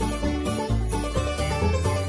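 Background music with layered notes over a bass line.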